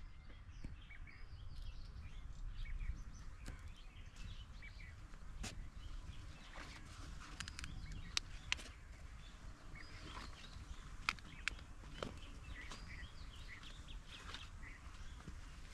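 Small birds chirping in many short calls over a steady low rumble outdoors, with a few sharp clicks, the loudest about eight and eleven seconds in.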